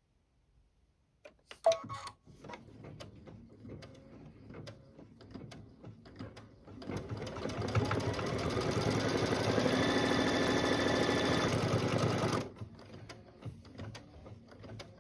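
Embroidery machine stitching a tack-down outline around a fabric piece: after a few clicks it runs slowly, then about seven seconds in the motor speeds up with a rising whine into a fast, steady stitching run. It stops about twelve seconds in, leaving light clicking.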